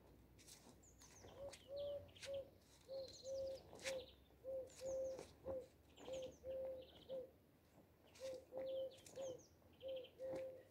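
A dove cooing in repeated three-note phrases, short-long-short, about every second and a half, faint, with small birds chirping and trilling higher up.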